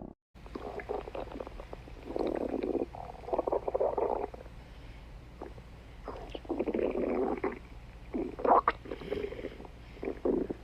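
A skunk's stomach growling and gurgling in irregular bouts, each lasting about a second, with quieter stretches between them.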